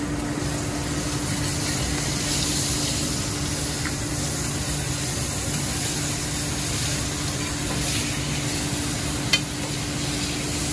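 Filet mignon steaks sizzling steadily as they sear in hot butter and oil in a stainless steel skillet, with a steady low hum underneath and a single sharp clink near the end.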